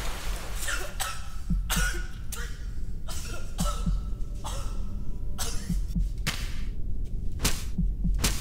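A man spluttering and gasping in short, noisy bursts, a little more than one a second, as water sprays off his face, over a low steady rumble.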